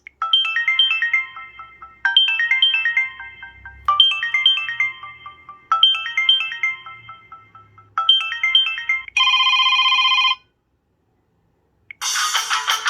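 Samsung Galaxy S2 (SGH-i777) ringtone: a short bright melody of quick high notes, played five times about two seconds apart, then a steady buzzing chord for about a second that cuts off suddenly. After a short silence, near the end, the next ringtone starts with strummed guitar.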